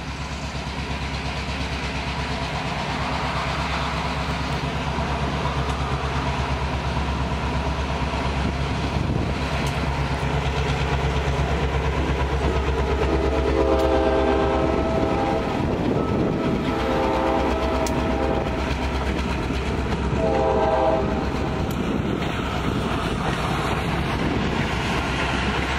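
A diesel locomotive passes with its engine running as a steady low drone, then its passenger coaches roll by with a rumbling wheel noise. Over the second half a train horn sounds three times.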